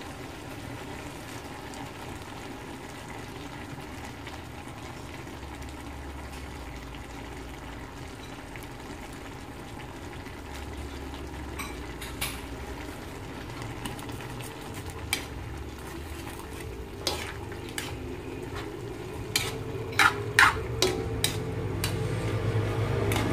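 Jackfruit and thick coconut milk sizzling steadily in a metal wok over a gas burner. From about halfway a metal ladle starts stirring, scraping and clinking against the wok, with the clinks coming thicker near the end.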